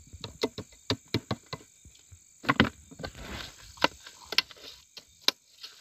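A clear plastic jar clicking and crackling in the hands as its green screw lid is twisted off and set down: a string of sharp irregular clicks, the loudest about two and a half seconds in and again near the end. Crickets trill steadily in the background.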